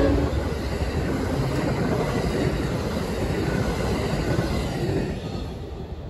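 Amtrak bilevel passenger cars rushing past at speed: a steady rumble of wheels on rail, with the last of the locomotive's horn blast cutting off just as it begins. The noise fades about five seconds in as the end of the train goes by.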